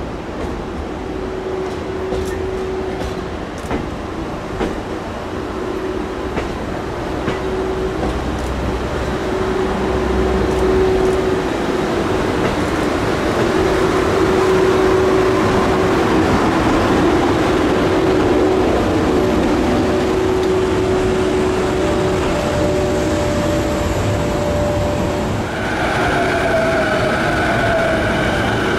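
A train passing at close range: the EF81 electric locomotive hauling the 205 series electric train set, with a steady hum and scattered clicks of the wheels over rail joints, growing louder towards the middle. About 26 s in the sound changes suddenly to high, steady squealing tones.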